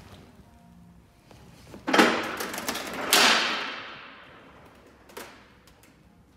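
Metal salmon ladder bar clanking and scraping against the ladder's rungs as it is worked up the ladder: two loud hits about a second apart, the second ringing away over a second or so, then a lighter knock near the end.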